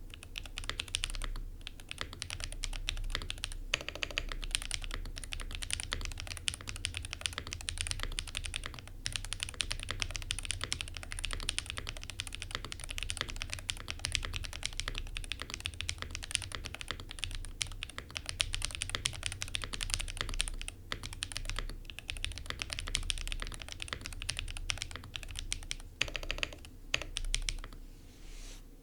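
Fast, continuous typing on a custom 60% mechanical keyboard with Gateron Magnetic Jade hall-effect switches, GMK keycaps, a POM plate and a Tofu60 Redux case dampened with foam and sound insulation. Keystrokes come in rapid runs with only brief pauses.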